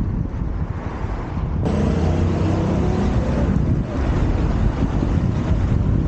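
Wind buffeting the camera's microphone as it moves, a rough, fluttering low rumble. About a second and a half in it gets louder, with a faint steady hum underneath.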